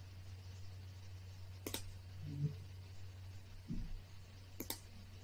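Two crisp computer mouse clicks about three seconds apart, placing markers, over a low steady hum.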